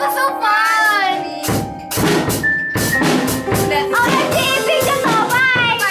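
Music with a drum-kit beat, the drums coming in about a second and a half in, with a girl's voice over it near the start.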